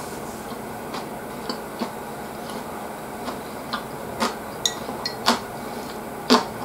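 Eating sounds: chewing and mouth noises, with scattered sharp clicks of wooden chopsticks against ceramic dishes, the loudest few in the second half.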